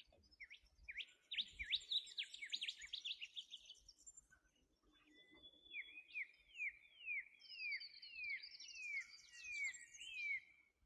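Wild birds singing: a run of quick rising chirps for the first few seconds, then after a short pause a series of downward-slurred whistles, about two a second, with fainter high twittering above them.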